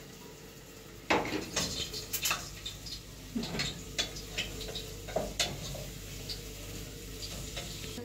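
Dishes and metal utensils clattering in a kitchen: a run of sharp clinks and knocks starts about a second in and thins to a few lighter taps after about five seconds, over a steady low hum.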